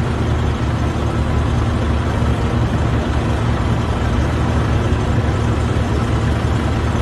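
Steady low engine rumble with a faint hum, running evenly with no breaks.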